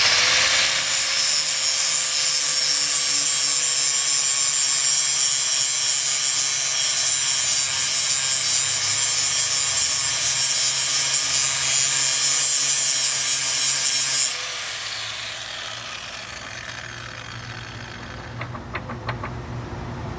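A high-speed motor spins up sharply, runs at a steady high pitch for about fourteen seconds, then winds down slowly over several seconds, leaving a lower hum underneath.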